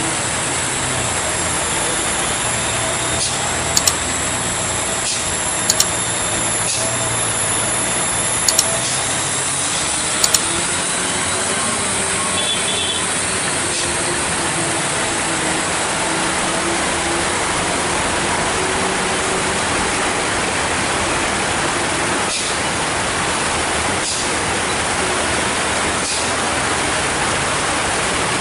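Steady hiss of heavy rain, with a heavy truck's diesel engine running at low revs beneath it on the steep wet climb. Four short, sharp clicks stand out in the first ten seconds.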